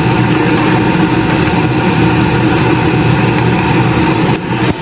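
A loud, steady motor hum with several constant tones in it, dipping briefly near the end.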